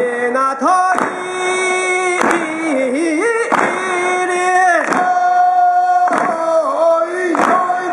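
Japanese folk-style singing accompanying a dance: one voice holding long notes that bend and slide between pitches, over a regular beat of strikes about every second and a quarter.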